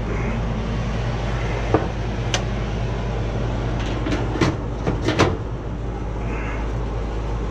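A handful of sharp knocks and clicks as an air handler's access panel is handled and closed up, over a steady low hum.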